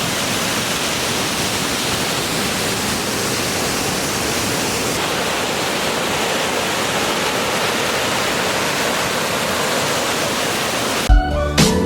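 Waterfall rushing in a steady roar of water; music begins near the end.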